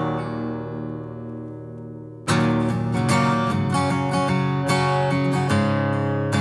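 Background music of strummed acoustic guitar. A chord rings out and fades, then loud strumming starts again a little over two seconds in.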